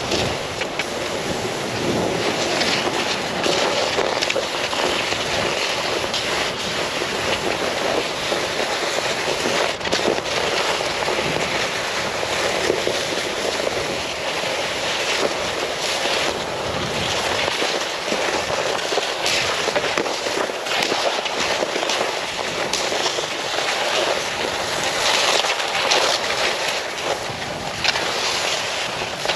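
Steady rushing wind noise on the microphone, swelling and easing in irregular gusts.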